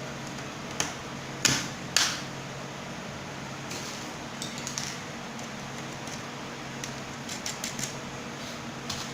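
Scattered clicks and light knocks of wooden 3D-printer frame parts and screws being handled during assembly, the three loudest in the first two seconds and a run of fainter ticks in the last few seconds, over a steady low hum.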